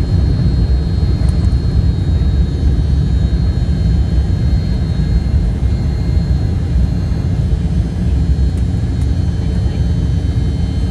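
Jet airliner engines running with a steady, heavy low rumble and a faint high whine.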